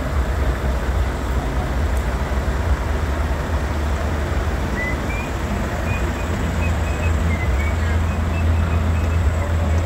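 Diesel engines of parked heavy trucks idling: a steady low rumble with no change in pitch.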